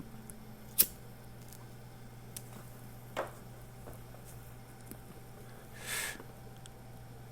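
A few sharp clicks, the loudest about a second in and another about three seconds in, and a short rustle near six seconds, over a steady low electrical hum: the small desk and mouse sounds of someone working at a computer.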